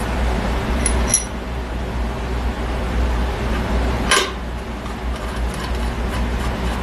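Steel differential parts being handled on a cast-iron carrier: two light metallic clinks about a second in and a louder metal knock about four seconds in, over a steady low hum.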